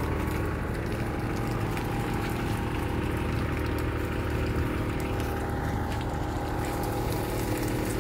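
Steady mechanical hum of a live-fish transport truck, with the bubbling of water in its aerated blue barrels.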